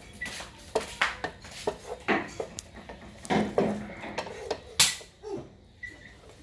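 Wooden spatula scraping and knocking against a speckled enamel frying pan as stir-fried greens and minced pork are shovelled onto a plate: irregular scrapes and taps, the sharpest knock about five seconds in.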